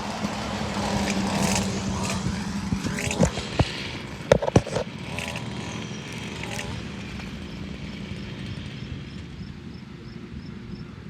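Riding lawn mower running, with a steady hum over the first few seconds, then a cluster of knocks and scrapes about three to five seconds in as it crosses rough, uneven ground, before it settles to a quieter run.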